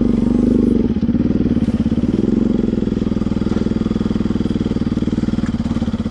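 Single-cylinder engine of a Bajaj Pulsar NS200 motorcycle running at low revs as it is ridden slowly over rough ground, its pitch rising and dipping slightly with small throttle changes.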